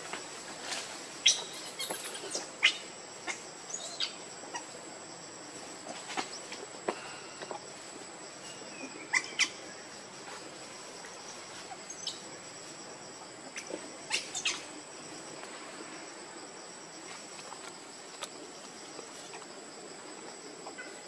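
A steady high-pitched insect drone, with scattered short sharp chirps and clicks; a cluster of louder chirps about nine seconds in and another around fourteen seconds.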